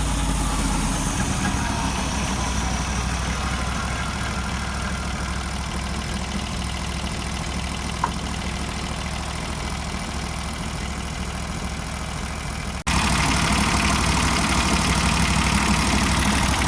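An engine idling steadily, with a single short click about eight seconds in. About thirteen seconds in, the sound cuts and comes back louder, still a steady engine.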